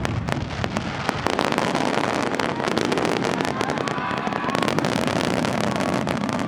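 Fireworks display: a dense, continuous run of crackling pops and bangs over a steady rushing hiss.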